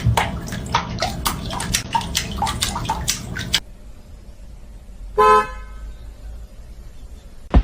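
A run of quick clicks and knocks over a low rumble, then a sudden drop, and about five seconds in one short, steady honk-like tone.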